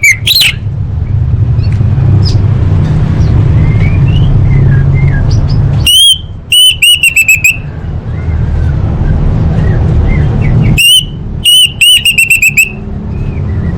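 Orange-headed thrush singing: two loud bursts of rapid, repeated whistled notes, several seconds apart, with faint chirps between them. A steady low hum runs underneath.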